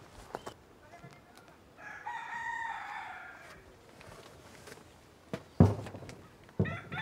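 A rooster crowing once, one long call. Near the end come two sharp knocks, the first the louder, as a tray is set down inside a wooden solar food dryer.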